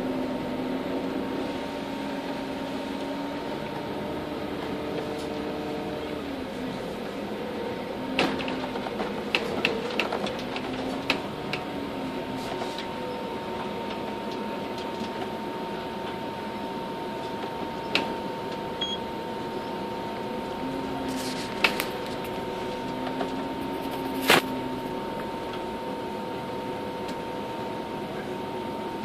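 Steady hum and road noise inside a moving vehicle's cabin, with a constant high tone. A cluster of sharp knocks and rattles comes from about eight to twelve seconds in, and single knocks come around eighteen, twenty-two and twenty-four seconds in.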